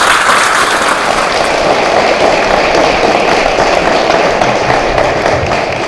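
Seated audience applauding steadily, tailing off near the end.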